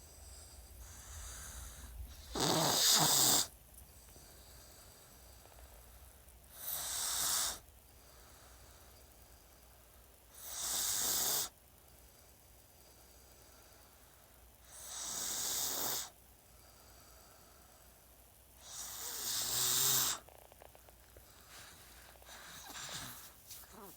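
Snoring: five loud snores, each about a second long, spaced roughly four seconds apart.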